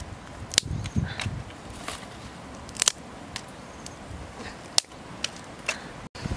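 Dry twigs and small sticks clicking and knocking as hands handle and stack them into a fire lay, with a few low knocks about a second in and about eight sharp, irregular clicks.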